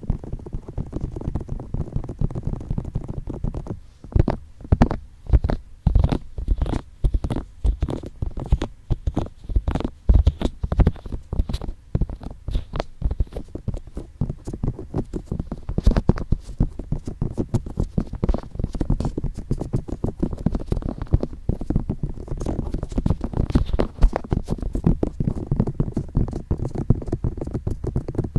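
ASMR ear tapping and touching: fingertips tapping and rubbing on the microphone's ears in a dense run of dull, low thuds and rubs. Between about four and nine seconds in, the taps come apart as separate strokes, then run together again.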